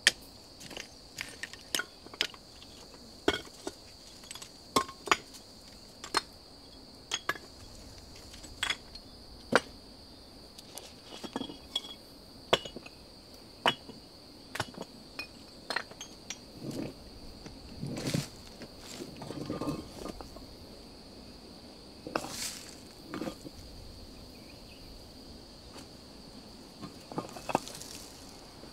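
A small pick strikes and scrapes into stony soil, making sharp clicks and knocks about once a second. In the second half, loose rocks clink and knock as they are set down on a pile. A steady high insect drone runs underneath.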